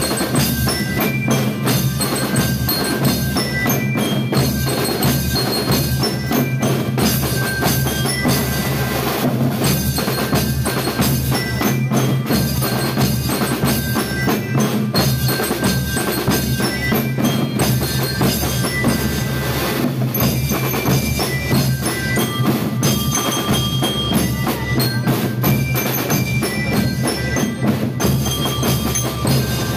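School rhythm band playing a march: bell-lyres (marching glockenspiels) ring out a melody of short, bright metal notes over steady drumming.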